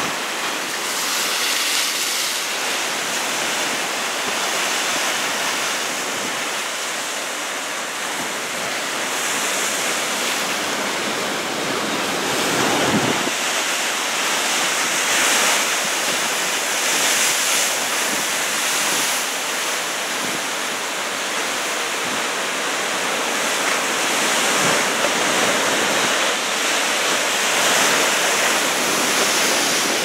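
Heavy storm surf from a typhoon swell: a steady rush of breaking waves, with wind on the microphone and a brief thump on the microphone about halfway through.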